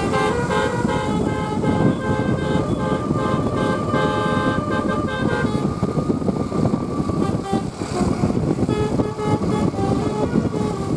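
Bus telolet horn, a Basuri multi-tone air horn, playing a melody of stepped notes over steady vehicle noise. The notes are strongest for the first five seconds or so and go on more faintly after that.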